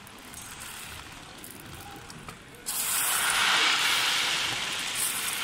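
A wide dust mop pushed across a hardwood floor, sweeping along hundreds of loose steel slingshot balls: a rolling, rattling hiss of the mop and the balls on the wood. It is quiet at first and turns suddenly much louder about two and a half seconds in.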